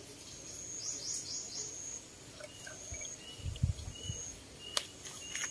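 Small birds chirping over a high, broken insect trill in a rural yard. A few low knocks come about three and a half seconds in, and there is a sharp click near the end, as a metal pot is handled and set down on concrete.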